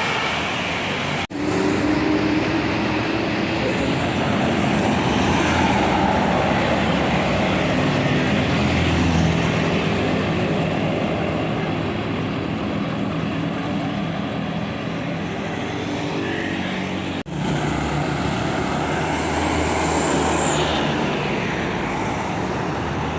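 Tour buses driving past on a road: engines running with road and traffic noise, broken twice by abrupt cuts.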